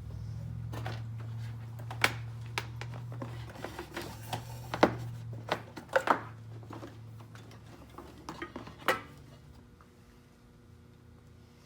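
Low steady electric hum that slowly fades out, with sharp metallic clinks and taps of parts and tools being handled on the key machine.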